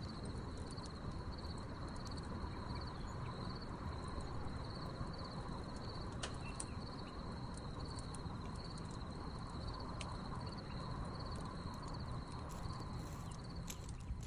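Wood fire crackling with scattered sharp pops, over crickets chirping in a steady, pulsing high trill.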